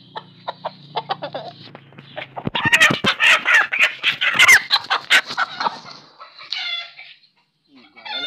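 Gamecock rooster squawking and clucking while it is held, with a burst of loud rustling and knocking from about two to five seconds in as the bird struggles, and a short squawk near the end.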